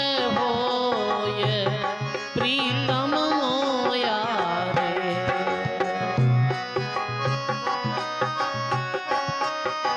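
Instrumental interlude of a Rajasthani bhajan: a hand drum beats a steady rhythm under a harmonium. The melody wavers and glides in the first half, then settles into held notes and chords.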